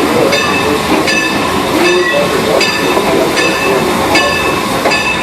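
A railroad bell ringing steadily, about one stroke every 0.8 seconds, over the running noise of the train.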